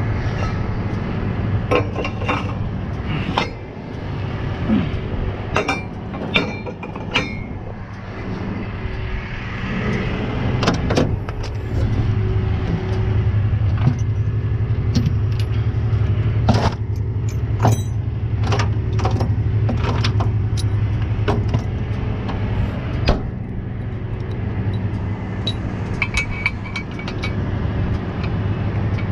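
Truck engine idling steadily, with scattered metal clanks and clinks as the steel tow-truck underlift forks, pins and hand tools are handled.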